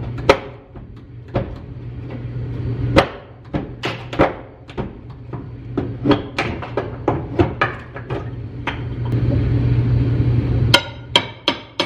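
Hammer blows on wooden wall planks, irregular strikes knocking the boards loose, then a quick run of about three blows a second near the end. A steady low hum runs underneath and cuts off shortly before that run.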